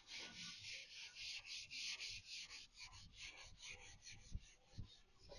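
Scotch-Brite abrasive pad being rubbed by hand over primed steel van bodywork in quick, faint back-and-forth scrubbing strokes, a few a second, rubbing the primer down. A couple of soft low knocks come near the end.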